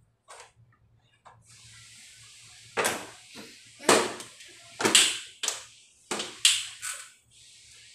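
A cloth wiping the front casing of a Matrix split-type air conditioner: a steady rubbing hiss, then from about three seconds in a run of about seven sharper, louder swipes.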